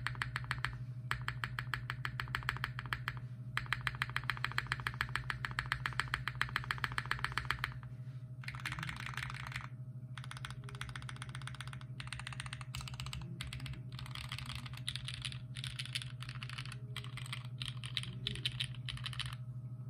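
Typing on a custom 60% mechanical keyboard (Sangeo 60 with a polycarbonate half plate) fitted with lubed Durock POM switches and GMK Apollo keycaps. There is a fast, even run of key strikes for about the first eight seconds, then more broken-up bursts of typing.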